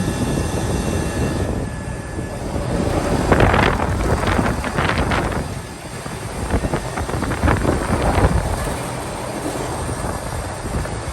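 Commercial York air conditioning units running: a steady whir of condenser fans and compressors, with louder rushing surges about three to five seconds in and again around seven to eight seconds in.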